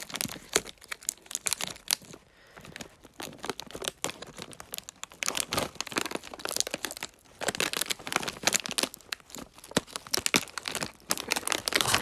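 Corn Nuts snack bag crinkling and crackling as it is handled and opened by hand, in dense irregular bursts with a brief lull a couple of seconds in.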